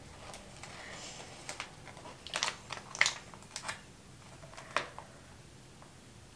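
Sheet-mask packet being crinkled and torn open by hand and with the teeth: a series of sharp crackles and rips, the loudest about three seconds in.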